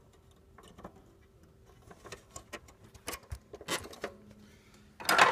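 Light, scattered clicks and taps of hands working a copier's plastic document-feeder handle while hooking its metal spring back into place, with one louder clatter near the end.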